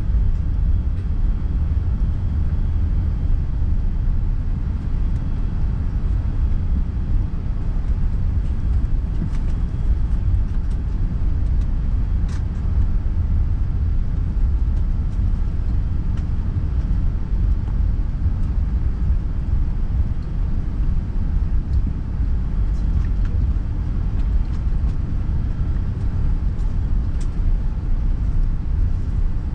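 Steady low rumble of an Airbus A380's engines and airframe heard inside the passenger cabin, with a few faint rattles and clicks.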